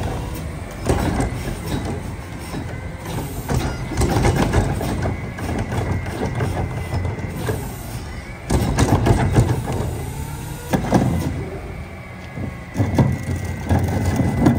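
Rear-loader garbage truck working at the curb: its diesel engine runs steadily while trash carts are tipped into the hopper, with repeated loud knocks and clatter as carts bang against the hopper edge and bags of trash drop in.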